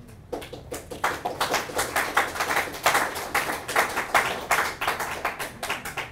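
Audience applauding: many hands clapping, starting a moment in, filling out within about a second, then cutting off abruptly near the end.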